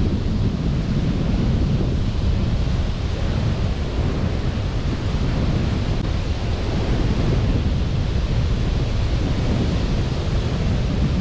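Sea surf washing on a beach under steady wind that rumbles on the microphone, an even, unbroken noise with no separate events.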